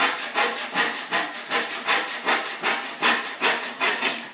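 Stanley back saw cutting across a wooden board by hand, its blade freshly rubbed with paste wax to ease the cut. Even, rasping back-and-forth strokes, a little under three a second.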